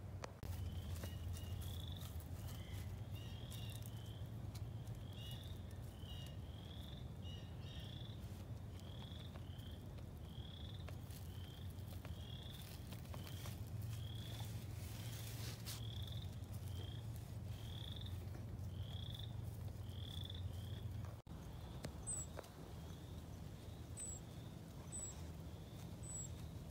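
Frogs calling in a chorus: short rising peeps about once a second, some overlapping, over a low steady rumble. The calls stop about 21 seconds in, and a few faint high chirps follow.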